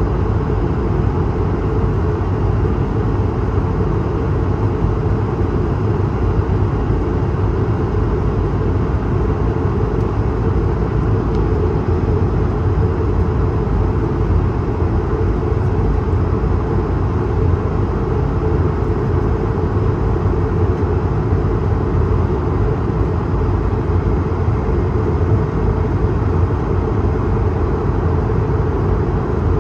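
Steady cabin noise aboard an Airbus A220-300 in flight: an even, low rumble of airflow and engines that does not change.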